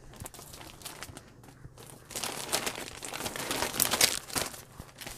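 Crinkling and rustling of cross-stitch kits' clear plastic packaging being handled, louder from about two seconds in.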